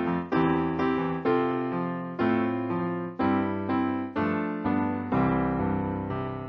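A piano plays a slow hymn tune, with chords struck about once a second, each ringing and fading before the next.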